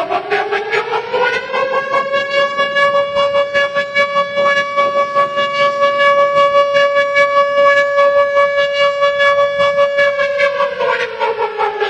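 Air-raid siren winding up in pitch over about two seconds to a steady wail, holding with a rapid rhythmic pulsing, then winding down with falling pitch near the end.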